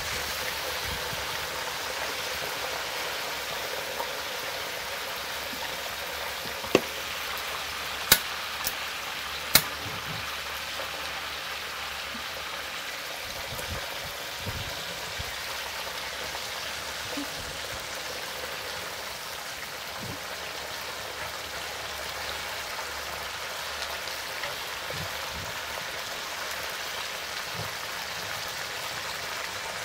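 Hot oil sizzling steadily around flour-dusted mud crab pieces frying in a wok, with a few sharp clicks between about seven and ten seconds in.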